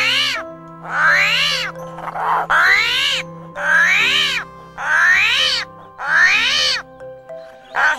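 An animal's high call, rising and then falling in pitch, repeated about once a second, over steady background music.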